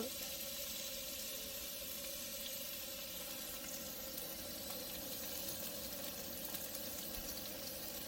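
Bacon and sausages sizzling steadily on a Campingaz portable gas grill.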